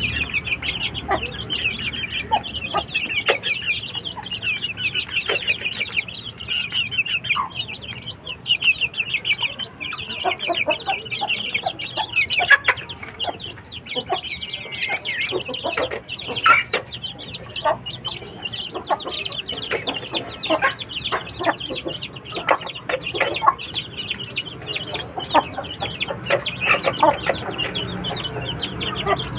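A flock of chickens clucking and calling over one another. A constant high-pitched twittering runs underneath, with louder single calls scattered throughout.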